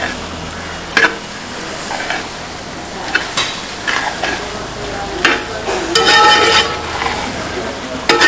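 Meat and onions sizzling as they fry in a large pot, stirred with a metal ladle that scrapes and knocks against the pot now and then, most busily about six seconds in.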